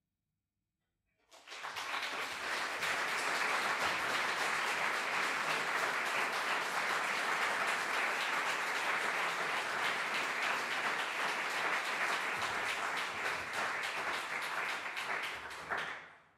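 Audience applauding: many people clapping in a steady, dense stream that starts about a second in and dies away near the end.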